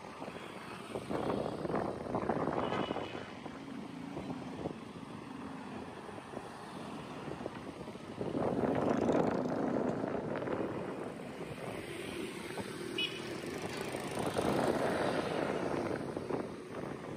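Road traffic: vehicles running past, with two louder pass-bys about eight and fourteen seconds in.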